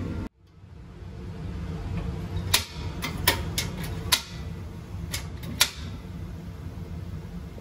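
Sharp clicks of a Rinnai commercial gas rice cooker's ignition lever being pressed and its igniter sparking to light the burner, about eight clicks spread over three seconds, over a steady low hum.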